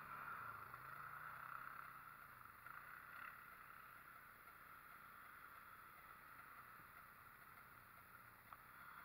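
Faint, steady hum of ATV engines.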